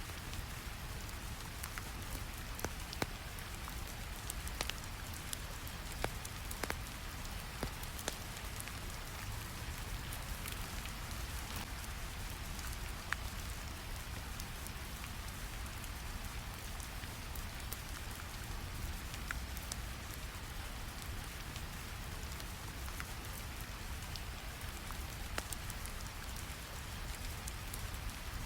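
Steady rain hiss over a low rumble of brown noise, with scattered small pops and ticks of a crackling fire.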